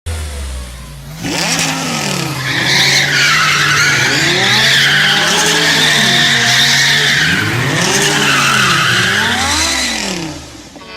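Car engines revving up and down in pitch again and again, with tyres squealing.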